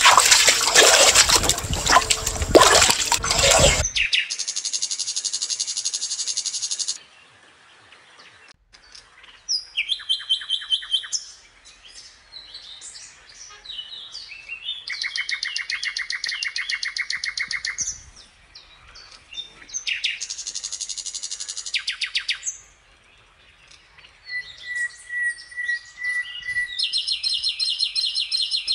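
Loud splashing water noise for about four seconds that cuts off abruptly. Then songbirds chirping in fast repeated trills, phrase after phrase with short pauses between.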